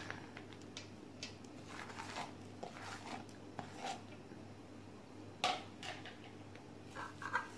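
Light clicks and rustles of a hand scooping raisins from a plastic bowl and scattering them over cooked rice in a metal rice-cooker pot, with one sharper click about five and a half seconds in, over a faint steady hum.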